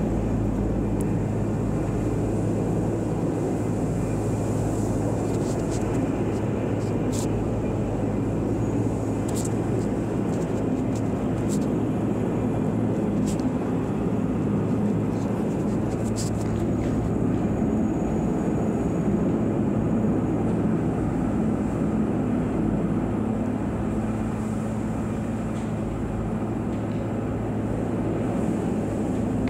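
Helicopter hovering overhead during a heavy lift, its engine and rotor making a steady drone, with a few sharp clicks in the middle.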